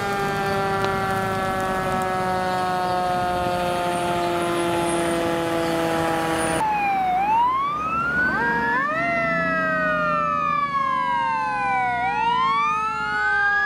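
Fire truck sirens. First comes one long siren tone that slides slowly down in pitch. About six and a half seconds in it cuts abruptly to wailing sirens that rise and fall in long sweeps, two of them overlapping.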